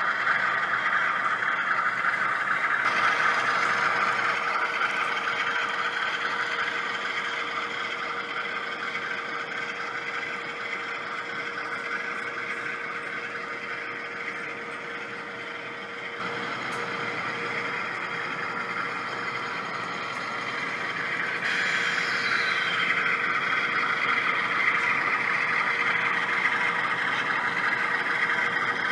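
HO-scale model diesel locomotive running with a train, its DCC sound decoder giving a steady diesel engine sound over the rolling of the wheels on the track. The sound grows louder about two-thirds of the way in.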